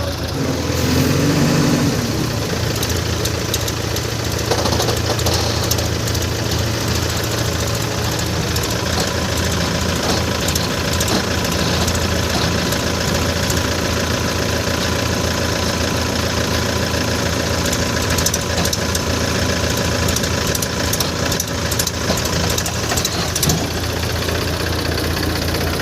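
JCB 3DX backhoe loader's diesel engine running steadily, with scattered short knocks and rattles.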